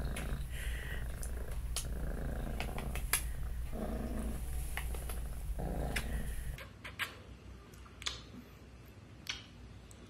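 Cat purring steadily close to the microphone, with scattered small clicks over the purr. The purring cuts off abruptly about six and a half seconds in, leaving a quieter background with a few soft ticks.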